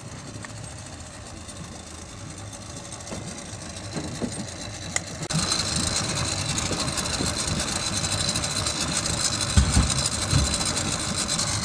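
Small boat's outboard motor idling. It gets suddenly louder and hissier about five seconds in, with a steady high whine. A couple of low thumps come near the end.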